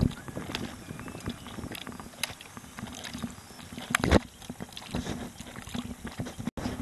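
Small waves lapping and slapping against the hull of a small rowing boat, with scattered light knocks and a louder thump about four seconds in.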